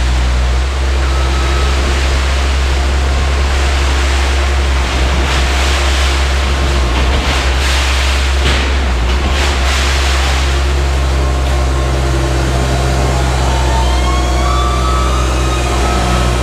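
2005 Bobcat S175 skid steer's diesel engine running steadily, with faint higher whining tones coming in near the end.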